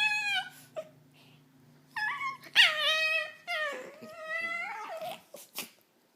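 Small dog making drawn-out, cat-like whining calls that waver in pitch, much like meowing. A long call ends about half a second in, then three more follow from about two seconds in, the last lasting about a second and a half.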